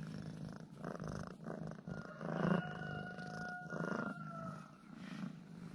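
Domestic cat purring close up, the purr swelling and easing with each breath about once a second.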